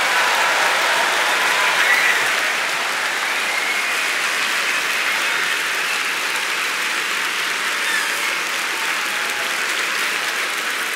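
Audience applauding steadily after a stage talk, with a few faint whoops in the first few seconds.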